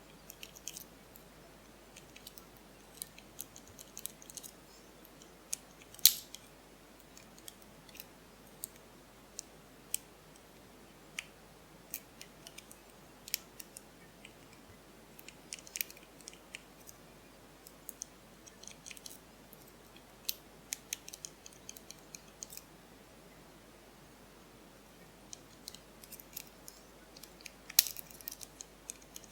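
Small, irregular metallic clicks and scrapes of a lock pick working the pins of a pin-tumbler cylinder lock while it is held under tension, with one louder click about six seconds in and a quick cluster of clicks near the end.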